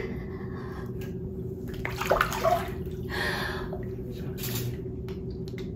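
Bathwater sloshing and lapping as people shift in a filled bathtub, with a few small splashes about two seconds in, over a steady low hum.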